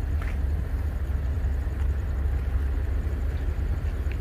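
Heavy vehicle engine idling, a steady low rumble.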